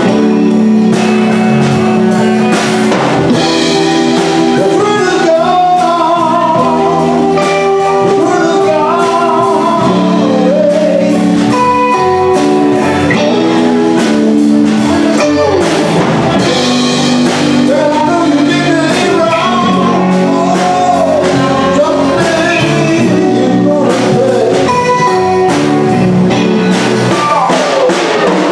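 Live band playing a blues number: guitars over a drum kit, with singing.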